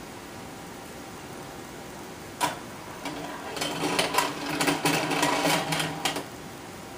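A single sharp click, then about three seconds of rapid mechanical clicking and whirring, over the steady hiss of an aquarium's air bubbles.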